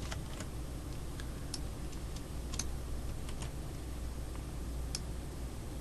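Light, sharp clicks at irregular intervals, roughly one or two a second, like computer clicks or key taps, over a steady low hum.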